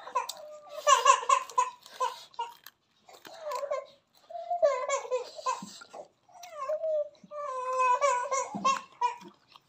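A high-pitched voice babbling in short phrases with brief pauses between them, like a small child's.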